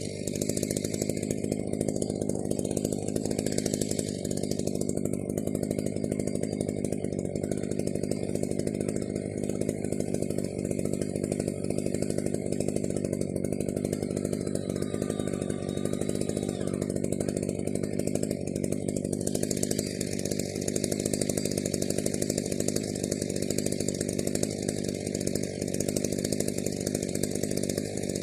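Chainsaw running steadily at high speed through a long rip cut, milling a log lengthwise in a homemade Alaskan-style chainsaw mill.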